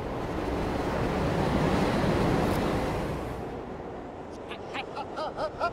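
Subway train running, a steady rumbling noise that eases off about three and a half seconds in. Near the end a man laughs in short, hooked bursts that sound played backwards.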